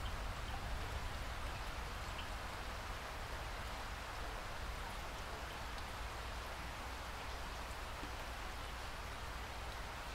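Steady rain falling, an even hiss with scattered faint drop ticks and a low steady rumble underneath.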